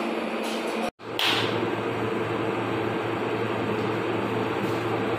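Steady droning hum of restaurant kitchen machinery. It breaks off for an instant about a second in and comes back with a deeper low hum.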